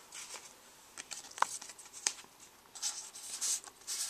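Pokémon trading cards handled and slid together in the hands: a few sharp card clicks and flicks, with light rustling near the end.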